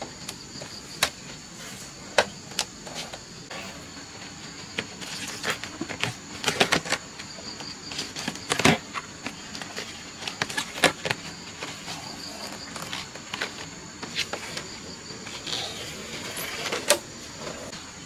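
Insects buzzing steadily in two high tones, with irregular sharp clicks and knocks throughout.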